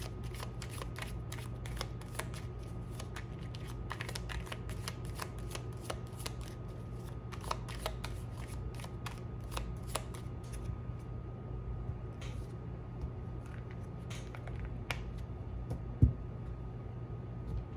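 A deck of oracle cards being shuffled by hand: a dense flutter of crisp card clicks for about ten seconds, then scattered single flicks. A single sharp knock comes near the end.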